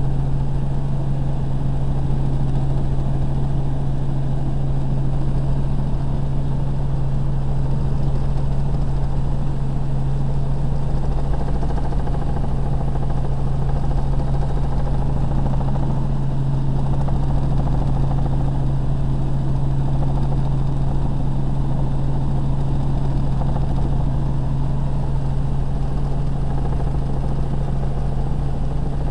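Helicopter in flight heard from inside the cabin: the steady drone of the rotor and turbine engine, with a strong, even low hum under a broad rushing noise.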